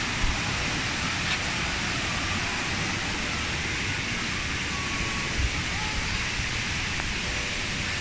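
Steady rush of water from the tiered waterfall cascades, an even hiss with no change through the whole stretch.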